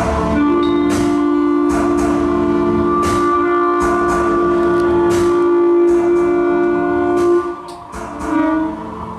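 Instrumental band music: one long held note from just after the start to near the end, over a pattern of plucked or struck notes.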